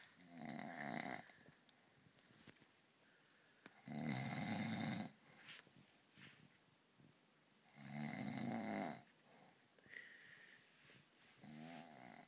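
A man snoring loudly in deep sleep after too many beers: three long, rasping snores about four seconds apart, each lasting about a second, and a fainter one near the end.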